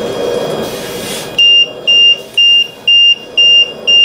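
LTV 1150 ventilator alarm beeping: a high-pitched beep repeating about twice a second, starting after about a second and a half of noise. It signals that airway pressure has gone above the 60 cmH2O high-pressure limit, with a high-PEEP alarm as well.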